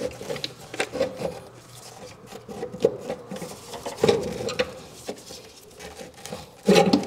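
Scraping, rubbing and small clicks of a fuel filter assembly being wiggled back into place by gloved hands in a HMMWV's engine bay, with a louder clunk near the end.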